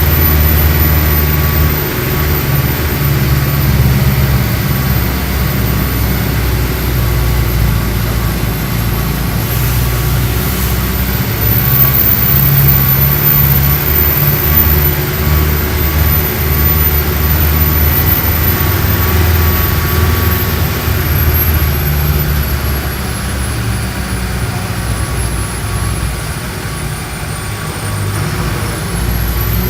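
Mercedes-Benz OF-1417 bus's six-cylinder turbo-diesel engine running with a steady, low drone that swells and eases slightly. A faint high whine dips in pitch and comes back up near the end.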